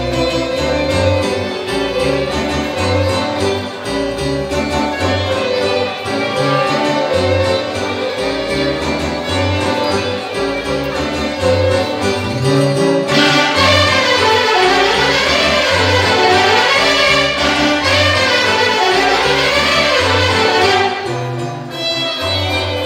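A solo violin playing a lively melody over a folk orchestra, whose bass pulses on each beat. About halfway through, the violin breaks into fast running passages that sweep up and down. It settles back to the main tune near the end.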